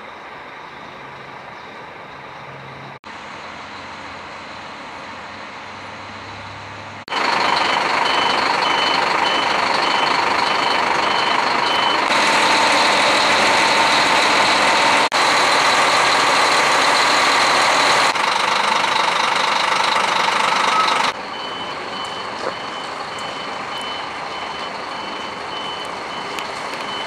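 Scania K400 double-decker coach running, heard as a steady vehicle hum that jumps in level at several abrupt cuts. A fast electronic warning beep, about three beeps a second, sounds over it for several seconds after the first loud cut and again in the last few seconds.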